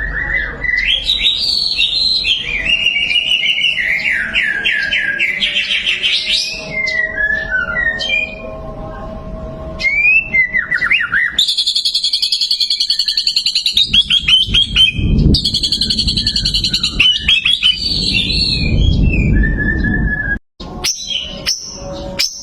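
White-rumped shama (murai batu) singing: varied whistled phrases that rise and fall, then from about halfway fast, high rattling trills. A low rumble runs underneath during the trills.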